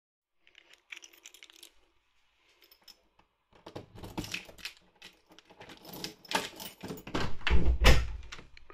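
Keys jangling and clicking at a door lock, with the lever handle and latch clicking as the door is unlocked and opened; the sound is loudest near the end, with a low thump as the door comes open.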